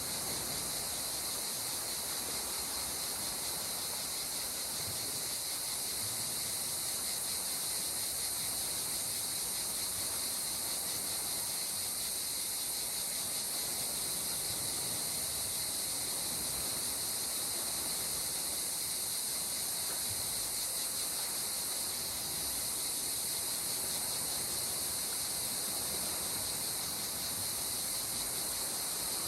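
Steady seaside nature ambience: a constant high-pitched hiss over a soft, even wash of calm sea water, with no swelling or breaking waves.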